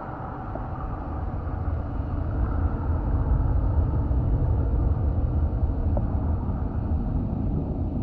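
Muffled low rumble of water moving over a GoPro's underwater housing strapped to a swimming snapping turtle's shell. It grows louder about two seconds in, with a faint tick or two.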